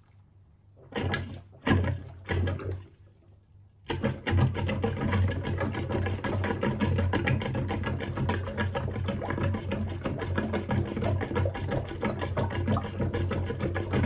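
Rubber cup plunger being pumped over a clogged kitchen-sink drain in standing soapy water: a few separate strokes about a second in, then from about four seconds rapid, steady plunging with the water splashing.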